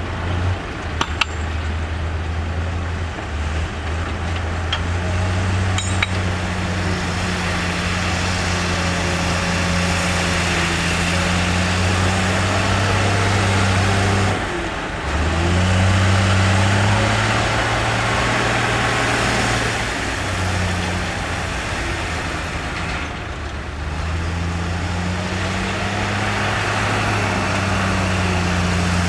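Heavy diesel engine of earthmoving machinery running under changing load, its pitch rising and falling as it revs, with a few sharp metallic clinks in the first several seconds.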